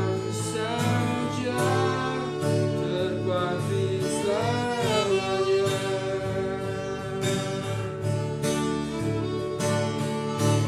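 Music: a song with a singing voice over instruments, including a guitar-like plucked string, with a rising-and-falling sung phrase about four seconds in.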